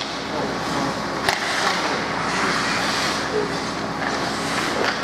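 Ice hockey skate blades scraping and carving on the ice, with hockey sticks clacking on the ice and puck. One sharp crack about a second in.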